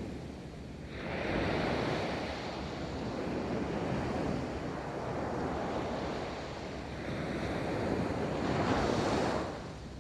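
Ocean waves breaking and washing up a beach, with a surge of surf about a second in and another that swells near the end before falling away, and some wind on the microphone.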